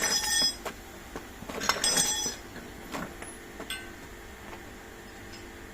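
Metal tools and brake parts clinking as they are handled during a truck brake pad change. There are two clusters of sharp, ringing clinks, at the start and about two seconds in, then a few lighter taps.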